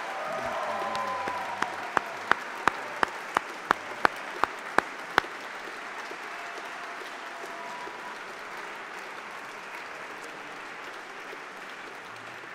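Audience applauding. About two seconds in, a run of about ten loud, sharp, evenly spaced claps close by comes over the applause, roughly three a second for about three seconds.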